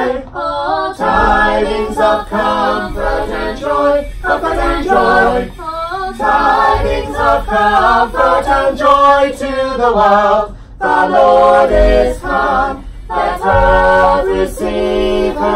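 Voices singing a cappella, with some notes held and short breaks between phrases.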